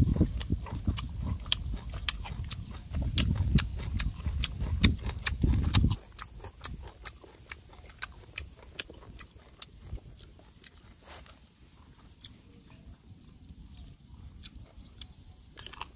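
A person chewing mango close to the microphone: many sharp, wet mouth clicks. A loud low rumble sits under the first six seconds and stops suddenly, after which the chewing clicks are fainter.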